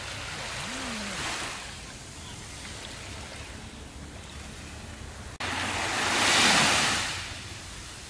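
Small waves lapping on a sandy beach, with a gentle swell about a second in and a louder wave washing up the shore later on. Just before that wave the sound drops out for an instant, as at an edit.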